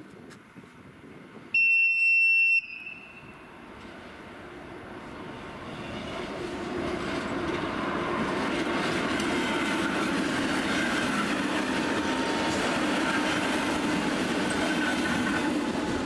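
A Czech class 460 electric multiple unit gives one short, steady, high-pitched warning blast lasting about a second. Then its running noise builds as it comes over the points and holds steady.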